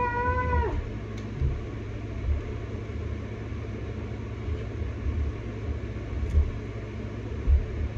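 The tail of a shouted "yeah" ends in the first moment. Then comes a steady low rumbling hum, broken by scattered soft low bumps and an odd faint click, like the handling of plastic action figures close to the microphone.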